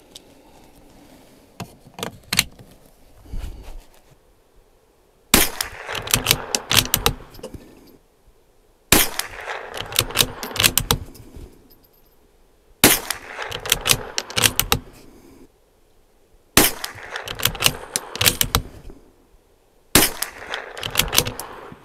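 Bergara B14R bolt-action .22 LR rifle firing five single shots of Remington Target ammunition, one about every three to four seconds. Each shot is followed by a couple of seconds of metallic clicking as the bolt is worked to chamber the next round. A few lighter handling clicks come before the first shot.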